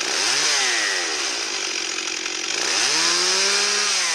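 Chainsaw sound effect revving up and back down twice, a steady buzzing rasp with the engine pitch rising and falling.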